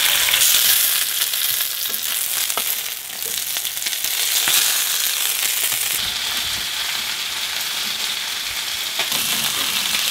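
Oil sizzling steadily as starch-coated flatfish (fluke) pieces pan-fry over medium-high heat to crisp up, with a few light clicks from a spatula in the pan.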